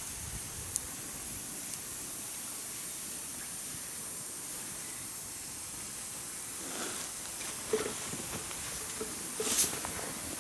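Steady hiss of cooking in a frying pan over a campfire, with sharp crackles and pops starting about two-thirds of the way through and one loud pop near the end.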